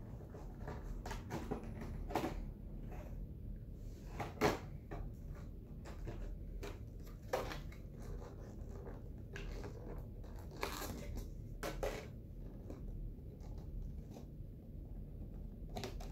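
Clear plastic blister packaging being handled and pulled apart: irregular crinkles, scrapes and sharp clicks as the plastic insert holding a trading card is worked loose.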